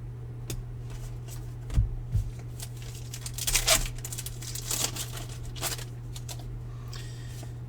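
Foil wrapper of a baseball card pack being torn open and crinkled in a few short bursts, loudest about halfway through, after a couple of soft knocks, over a steady low electrical hum.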